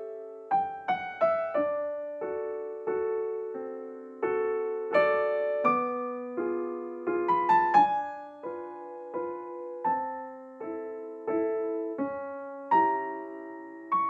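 Background piano music: a gentle melody of single notes and chords, each struck and then fading.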